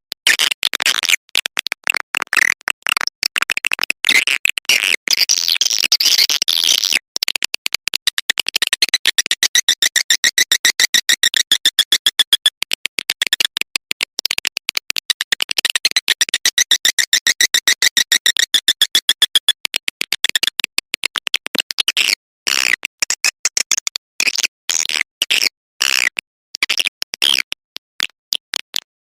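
Swiftlet-calling lure sound: a rapid, electronic-sounding train of high-pitched swiftlet chirps and twitters, several per second. It runs as an evenly pulsed stretch of pitched chirps through the middle, with brief breaks about 7 and 22 seconds in.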